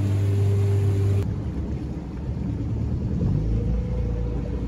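Small boat's motor running steadily under way, with a low steady hum. About a second in, the sound cuts to a lower, rougher rumble, and a fainter steady tone comes in later.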